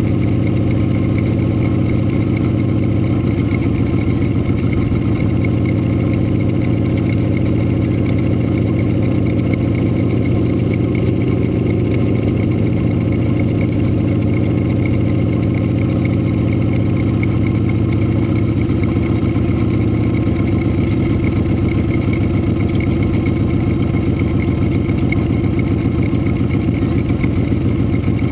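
Motorcycle engine running steadily while cruising, heard up close from the bike itself: a dense, even engine note whose pitch shifts slightly about twenty seconds in.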